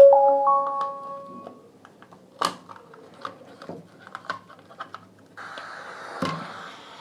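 A JBL Tune portable Bluetooth speaker plays its power-on chime, three short tones rising in pitch, set off while its housing is pried open. Sharp plastic clicks and knocks of the prying follow. About five seconds in, a steady hiss starts from the now-powered speaker.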